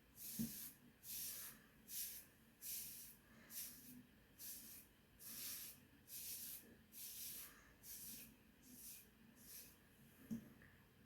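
Safety razor with a Feather Professional AC blade scraping through lathered stubble on a scalp, about a dozen short strokes a little faster than one a second, fading toward the end, with a light knock near the start and another near the end.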